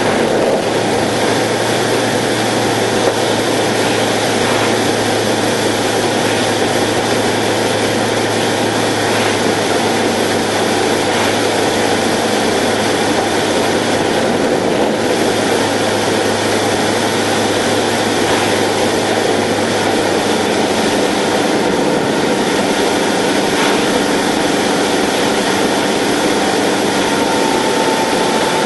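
Subaru car-engine conversion and propeller of a Zenair CH 701 light aircraft, heard inside the cockpit as a steady loud drone on the landing approach. The engine note shifts about two-thirds of the way through.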